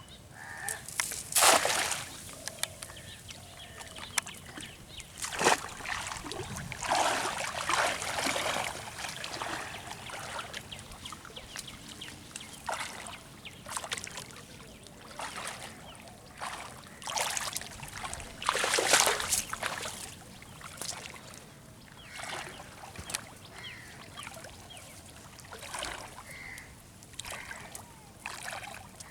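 Water splashing and sloshing in irregular bursts as a fishing net is dragged by hand through shallow water.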